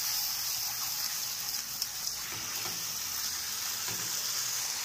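Fish pieces and spicy masala sizzling steadily in a pan, with a few light scrapes as a wooden spatula stirs the masala over the fish to coat it.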